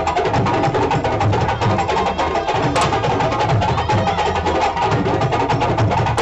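West African drums played live in a fast, dense rhythm, with sharp strokes over a steady pulsing low beat.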